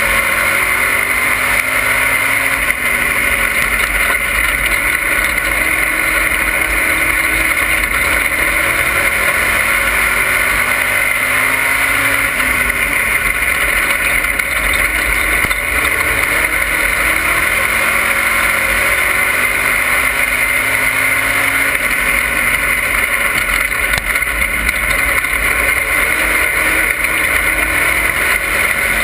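Race car engine at racing speed, heard from inside the cockpit, its revs rising and falling again and again as it laps, under a steady loud rush of noise.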